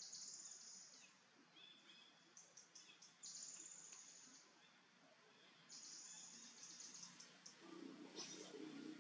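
Faint forest ambience: high-pitched buzzing calls from birds or insects, each about a second long and recurring every two to three seconds, with a few shorter high notes about two seconds in and a brief rustling noise near the end.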